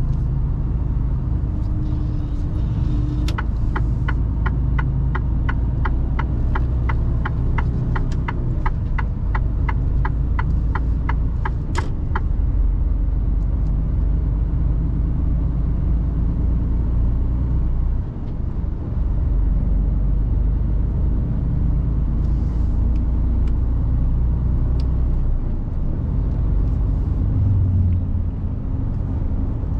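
Mercedes Actros truck heard from inside the cab as it drives on: a steady low engine and road rumble. From about three seconds in, for about nine seconds, the turn-signal indicator ticks about twice a second.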